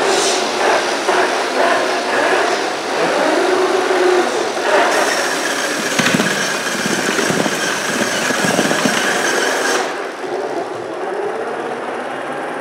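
A FIRST Robotics Competition robot's electric motors running as balls are fed into its intake. There is a sharp click about six seconds in, and a steady whine that cuts off suddenly about ten seconds in.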